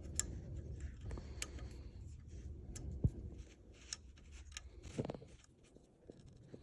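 Scattered small metal clicks and taps of a hand tool working a fastener on a car engine, used in place of an Allen key, with one sharper click about three seconds in.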